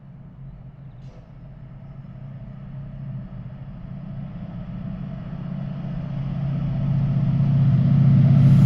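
A locomotive approaching on the line, its engine hum growing steadily louder until the train is almost level with the listener near the end.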